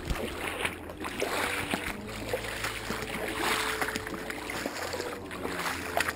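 People wading through shallow swamp water in boots: water sloshing and splashing, swelling with each stride about once a second.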